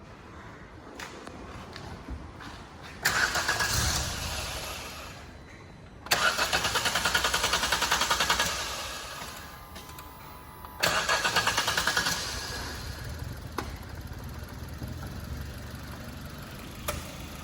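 A Maruti Suzuki Wagon R's petrol engine being cranked on the starter three times, slow to catch because the throttle body cleaner sprayed into the intake is still going down inside; on the third try it fires and settles into a steady idle.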